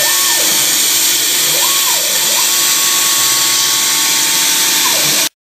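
CNC machine spindle cutting Mic6 cast aluminium plate in a 3D contour pass: a loud, steady high hiss with whining tones that rise and fall as the cutter moves. The sound cuts off suddenly near the end.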